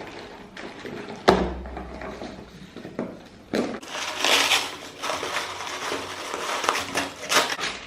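A small cardboard shipping box being opened by hand: a sharp knock about a second in, scattered clicks, then a stretch of loud rustling and tearing of the packaging in the second half.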